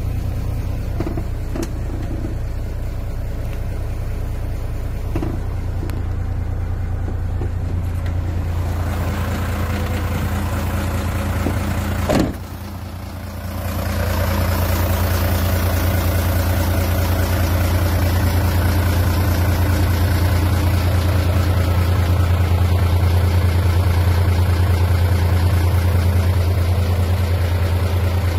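Mitsubishi Fuso Fighter's 6D17 six-cylinder diesel engine running steadily. A single sharp click about twelve seconds in is followed by a brief dip in the sound before the drone steadies again.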